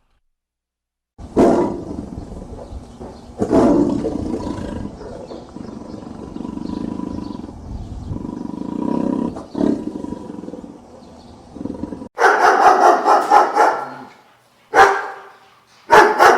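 A big cat roaring twice, then growling low and steadily. About twelve seconds in, a dog barking takes over in quick runs.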